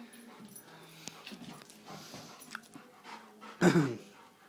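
A dog chasing a light beam, with faint ticks and scuffles, then about three and a half seconds in one short, louder dog vocalization that falls in pitch.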